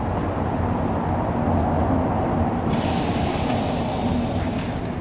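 Lisbon tram with a steady low rumble, and a hiss of air that starts a little over halfway in.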